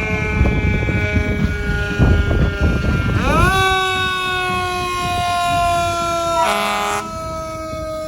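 Fire truck siren winding up about three seconds in, then holding and slowly sinking in pitch as it coasts. A short air horn blast comes a little after six seconds. A lower siren tone is already falling at the start, over a rumbling background.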